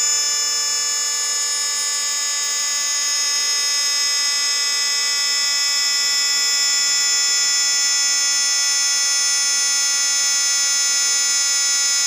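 Traditional 2.5 HP piston air compressor (NT2520, 25-litre tank) running as it fills its tank from zero pressure: a steady, high-pitched whine with many evenly spaced overtones. It cuts off suddenly just after the end.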